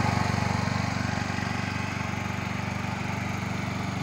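Suzuki Nex single-cylinder four-stroke automatic scooter engine, fitted in a Vespa PX, idling steadily with an even, fast pulse; it sounds less rough than a stock Vespa.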